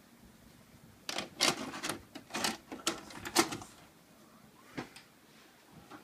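VHS cassette pushed into a VCR, with a quick run of plastic clatters and clunks as the deck's loading mechanism takes the tape in, then two single clicks about a second apart.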